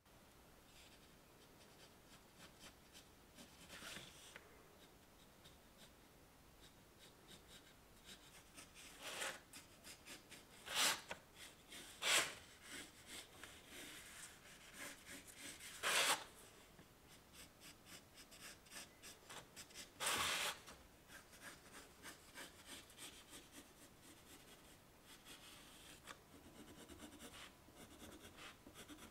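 Pencil drawing on paper laid on a wooden bench: a faint, steady run of small scratching strokes, with a few louder, longer strokes spread through.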